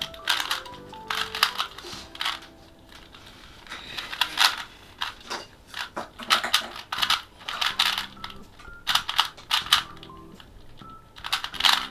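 A new, smooth-turning 3x3 Rubik's Cube being turned fast during a solve: a rapid, irregular run of plastic clicks and clacks from its turning layers.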